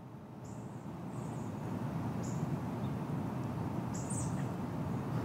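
Four short, high bird chirps over the low rumble of street traffic, which grows steadily louder as a vehicle approaches.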